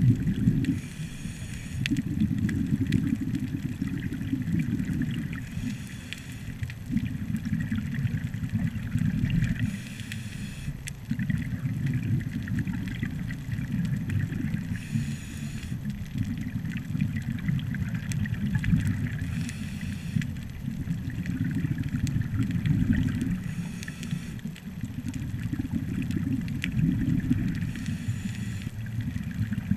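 Underwater sound of a scuba dive: a steady low rumble of water on the camera, with a burst of higher hiss and bubbling about every four to five seconds, the rhythm of a diver breathing through a regulator.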